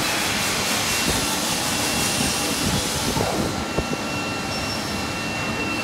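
Steady machine-shop running noise: an even rushing hiss with a faint thin high whine. The highest part of the hiss drops away about three and a half seconds in.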